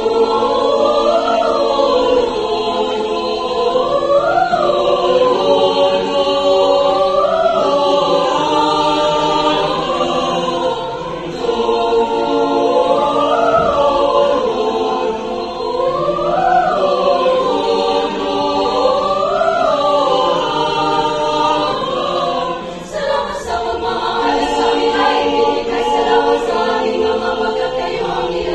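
Mixed choir of young men and women singing held chords, with a melodic phrase that swells up and falls back about every three seconds.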